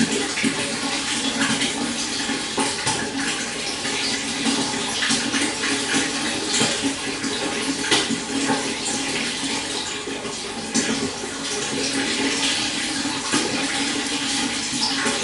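Stream water flowing steadily, a continuous rush dotted with many small splashes and gurgles.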